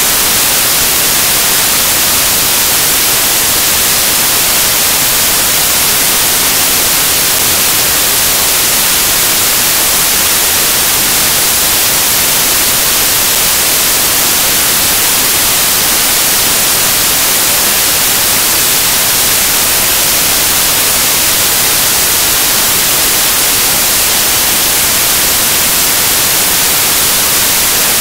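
Loud, steady static hiss with no voices or music, strongest in the high range. It is the sign of a broken or dropped audio feed in the recording.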